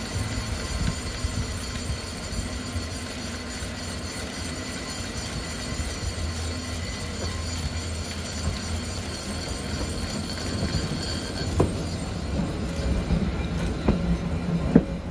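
Cable-hauled funicular railway car rumbling along its rails as it approaches, growing louder as it nears. A few sharp clanks come in the last few seconds as it passes close by.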